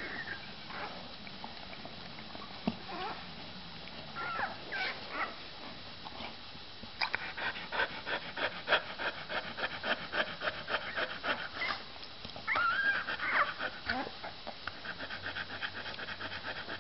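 Newborn Inuit Dog puppy squeaking and whimpering in short, high cries that slide up and down as it roots for its mother's teat. From about seven seconds in, a dog panting rapidly and steadily, broken once by another run of puppy squeaks.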